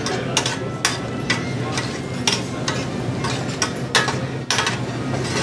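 Filet mignon sizzling in oil in a frying pan, with a metal fork and spoon repeatedly clicking and scraping against the pan as the meat is worked.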